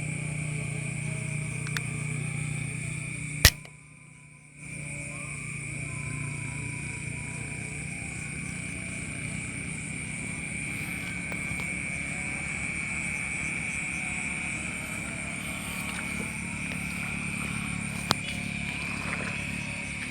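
A single sharp shot about three and a half seconds in, the loudest sound here, over a steady high-pitched drone. A much fainter click comes near the end.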